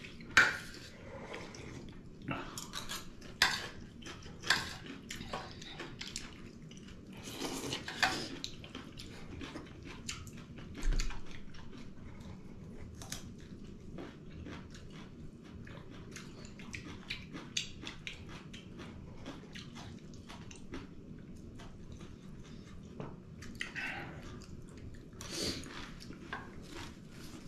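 Eating at the table: a metal spoon clinking and scraping on stainless steel plates, with chewing and a few sips from a bowl.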